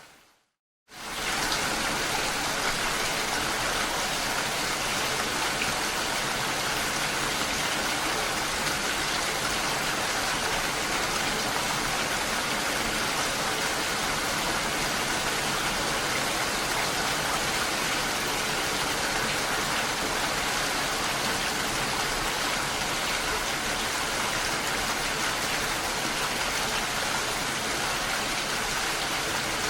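Steady, even rain falling on a lake. It cuts to silence for a moment in the first second and then resumes at full level.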